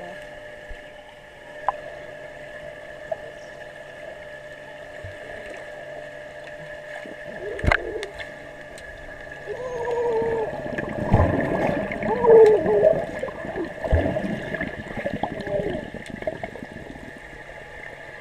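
Underwater pool sound picked up by a submerged camera: a steady hum throughout, then from about halfway through a few seconds of loud bubbling and gurgling as a child swims underwater.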